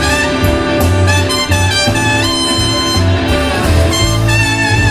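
Live blues-rock band playing: trumpet, trombone and saxophone horn section over electric bass and drums, the horns holding long notes in the second half.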